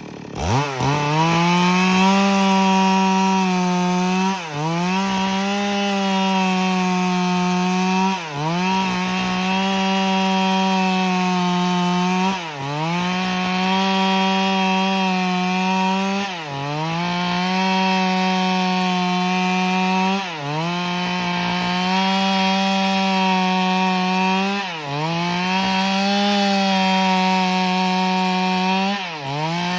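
Stihl MS 382 two-stroke chainsaw revving up and running at full throttle while cutting wood. About every four seconds its engine pitch dips briefly, then climbs back.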